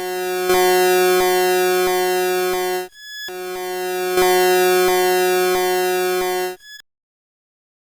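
Emergency Alert System–style electronic alarm tone: two long, steady, buzzy blasts of about three seconds each, each swelling in loudness, with a brief gap between them. The tone cuts off about a second before the end.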